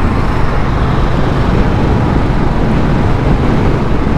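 Motorcycle riding at road speed: a steady rush of engine, tyre and wind noise.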